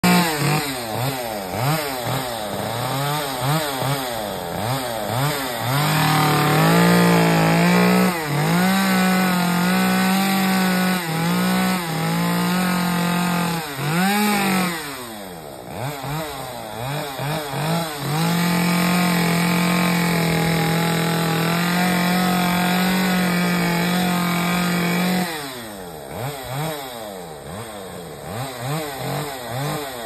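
Chainsaw cutting into the old frond bases at the crown of a Canary Island date palm: held at high, steady revs for long stretches of several seconds, dropping back between them to an uneven idle with the throttle blipped up and down.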